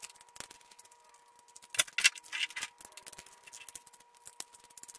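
Scattered small clicks, taps and rattles of a 1/64 scale die-cast and plastic toy combine being handled and unscrewed from underneath with a small screwdriver, a few clicks louder than the rest around two seconds in.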